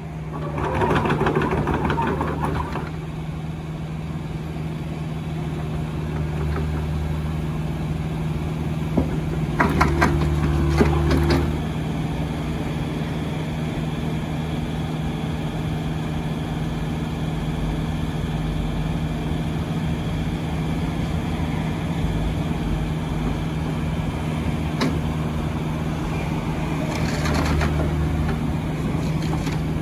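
Kubota U40-6 mini excavator's diesel engine running at a steady speed while the boom and arm are worked. It gets louder for about two seconds around ten seconds in, with a higher steady whine added.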